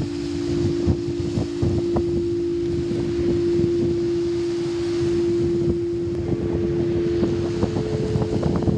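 Singing bowls sounding a steady held tone, with a second, higher bowl tone joining about six seconds in. Wind buffets the microphone underneath.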